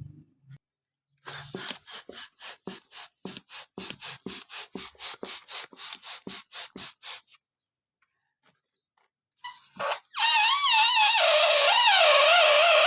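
A hand balloon pump worked in quick strokes, about four puffs a second, inflating a balloon. About ten seconds in, air escapes through the stretched balloon neck in a loud, wavering squeal.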